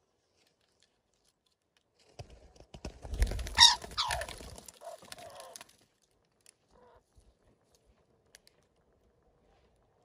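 Parakeet calls: a brief burst of squawks that fall steeply in pitch, between about two and five seconds in. The rest is quiet apart from a few faint clicks.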